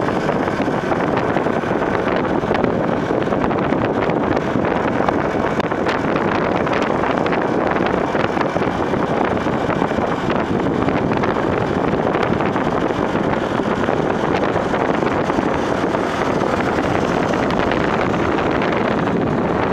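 Steady wind rushing over the microphone of a moving bike, with engine and road noise of riding at speed underneath.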